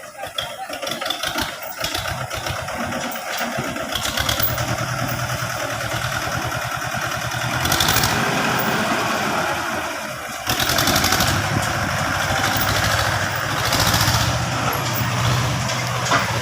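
A vehicle engine running steadily with a rapid pulsing beat, growing louder in brief surges a few times.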